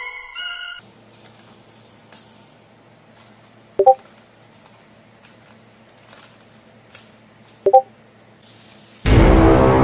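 Two short chat-message notification pings, Discord style, about four seconds apart, over a faint steady hum with light ticks. A violin phrase ends in the first second, and loud music cuts in near the end.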